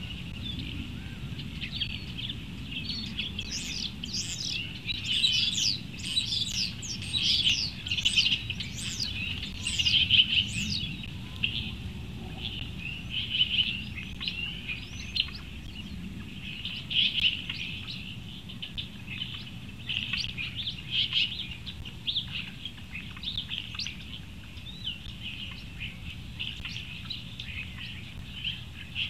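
Small birds chirping and singing, many quick high calls overlapping, busiest in the first half and thinning out later, over a low steady rumble.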